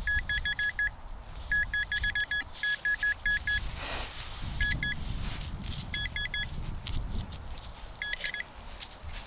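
Rutus Alter 71 metal detector giving quick runs of short, high beeps in several bursts as the coil sweeps over buried metal in the ground.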